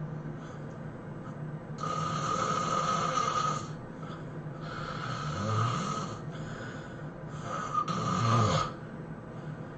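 A person snoring heavily in sleep: three long snores about three seconds apart, the last one the loudest.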